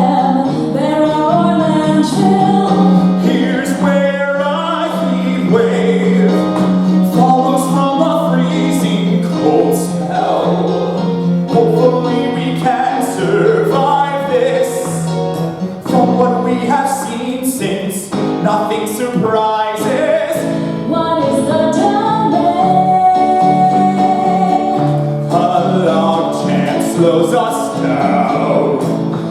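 Singing with instrumental accompaniment from a live musical number, the voices moving over a steady low held note that shifts to lower notes in the second half.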